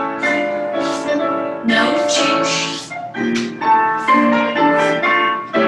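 Solo piano ballet-class accompaniment for a grand battement exercise, with chords struck on strong, regular beats.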